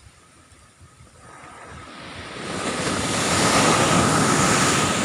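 Ocean wave breaking on the beach: the surf rush swells from about a second in to a loud peak and starts to die away near the end.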